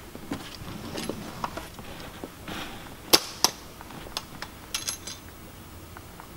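A Victor Soft Catch #3 4x4 rubber-jawed foothold trap, with four coil springs, being set by hand: a run of metallic clicks and clanks from its steel parts. The two sharpest clicks come about three seconds in, and a few more follow near five seconds.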